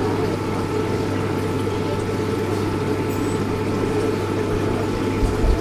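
A water pump humming steadily over the even rush of running water.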